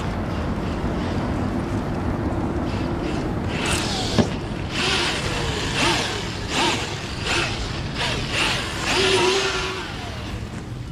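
Redcat Gen8 Scout II RC truck's brushless motor whining in short throttle bursts, its pitch rising and falling, along with the hiss of tyres spinning on sand and gravel. There are about six or seven bursts from about four seconds in, after a stretch of steady low background noise.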